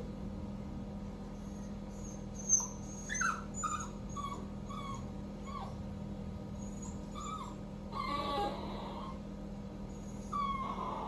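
Three-month-old Cockapoo puppy whimpering and crying at being left alone: a run of short, high-pitched whines that drop in pitch a couple of seconds in, then longer cries about eight seconds in and again near the end.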